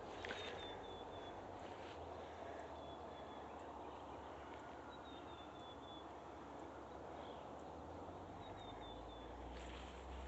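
Faint outdoor background noise with a small bird calling: short runs of three or four quick high chirps, heard about four times.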